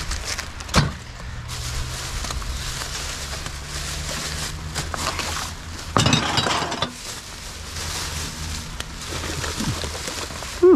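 Glass bottles and aluminium cans clinking and a plastic bag rustling as a bag of recyclable containers is handled. There is a sharp clink about a second in and a louder clatter about six seconds in.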